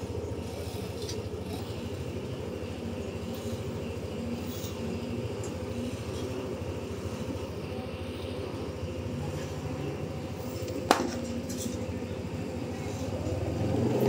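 Large truck's diesel engine running at low revs as it pulls away, a steady low rumble that grows louder near the end. A single sharp click about eleven seconds in.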